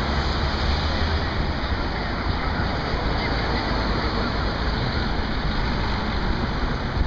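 Steady city street ambience: distant road traffic as an even wash of noise with a low rumble underneath, no single event standing out.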